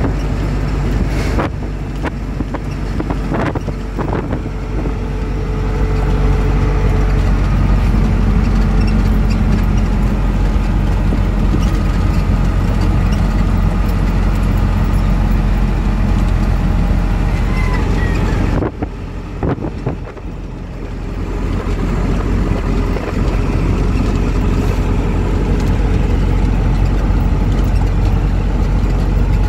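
Engine and road noise inside a moving vehicle's cab: a steady low drone. It drops in level for a couple of seconds about two-thirds of the way through, then builds again.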